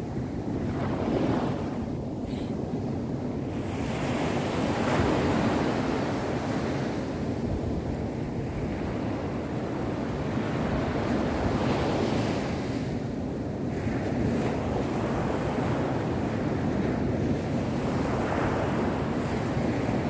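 Small waves breaking and washing up a sandy beach, the surf swelling every few seconds as each wave runs in and drains back, with wind rumbling on the microphone.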